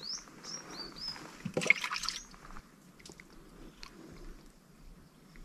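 Small birds chirping in short rising notes, then about a second and a half in a brief splash of water lasting under a second, followed by a few faint ticks.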